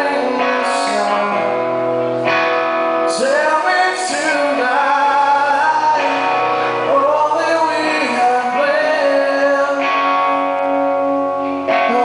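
Live rock song: a man singing lead into a microphone while playing guitar, with long held vocal notes over sustained chords.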